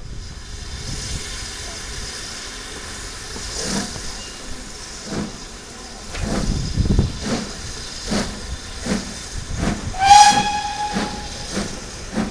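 Steam locomotive pulling a train away, with a hiss of steam, then its exhaust beats starting up and quickening to about two or three chuffs a second. A single whistle blast of about a second sounds near the end.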